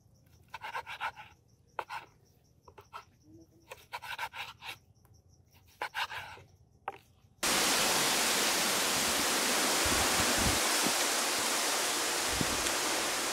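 Knife sawing through crisp grilled meat on a wooden cutting board, in short scraping bursts. About halfway through, a loud steady rushing hiss starts abruptly and continues.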